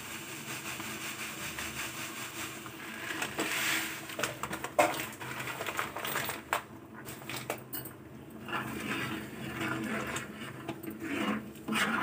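Sugar tipped into a large metal pot of thick, simmering kheer and stirred in with a metal spoon: a steady low hiss, then from about four seconds in a run of clinks and scrapes of the spoon against the pot.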